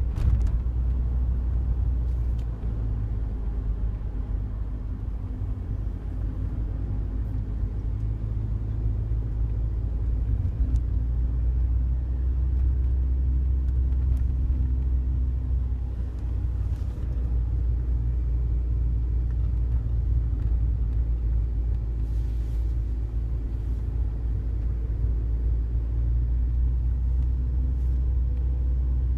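Steady low road and engine rumble heard from inside a Daihatsu Wake's cabin while driving, with scattered faint clicks: the rattle that comes from the passenger-side dashboard and gets louder with vibration.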